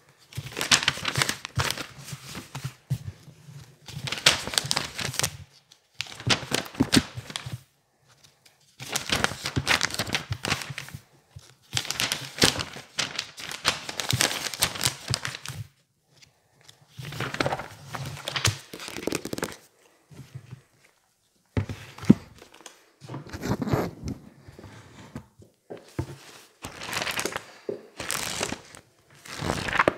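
Pages of a thick paperback textbook being flipped and turned fast by hand: bursts of rapid papery rustling and flapping, each a second or two long, with short pauses between.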